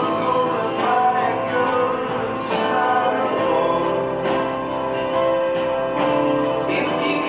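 A song with singing over plucked guitar and a steady beat.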